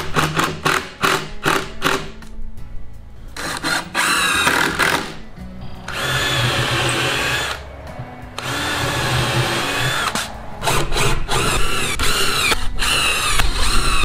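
Cordless drill driving screws into 2x wooden lumber in several long runs, the motor's pitch rising and falling, with shorter quick bursts near the start and toward the end.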